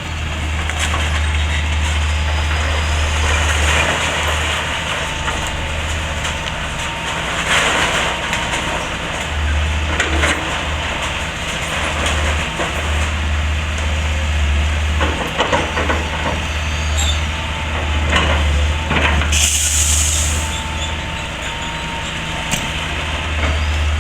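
Excavator engine running steadily under load while the machine tears into a timber-framed house, with repeated cracks, crunches and knocks of breaking timber and debris. A short hiss comes about twenty seconds in.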